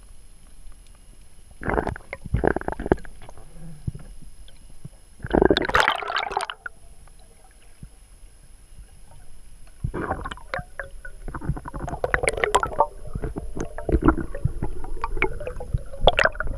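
Underwater bubbling and gurgling of air bubbles rising past the camera, heard underwater: short bursts early on, a louder burst around the middle, then a longer, denser run of bubbling through the second half.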